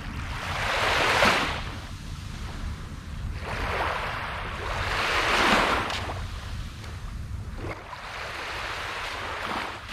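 Small waves washing onto a sandy shore of a nearly flat-calm sea: two swells of surf hiss, about a second in and again around the middle, rising and fading, over a low steady rumble.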